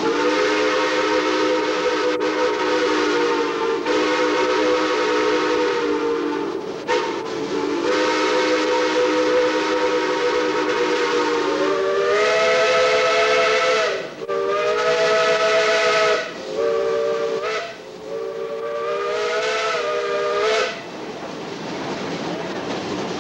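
Steam locomotive whistle, a chime of several notes sounding together, blown in a long run of blasts. The first blasts are long; about halfway the pitch shifts slightly and the blasts become shorter, the last ending a few seconds before the end.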